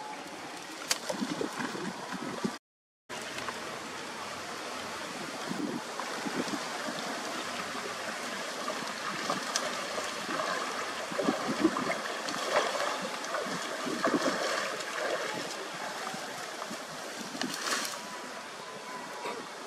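Shallow canal water splashing and gurgling as a tangled clump of branches and trash is pulled out of a clog and a person wades through the water. The sound cuts out briefly about three seconds in.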